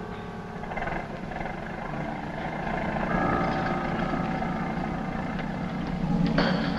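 Background music from a 1950s TV drama score: low held tones and chords that shift about three seconds in, with a sudden louder accent near the end.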